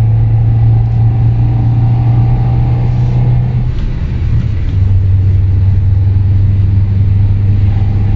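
Lada Vesta 1.8's CBD aftermarket exhaust droning inside the cabin at highway speed, near 3,500 rpm: a steady low hum resonating through the body. About four seconds in, the drone dips briefly and then settles slightly lower in pitch.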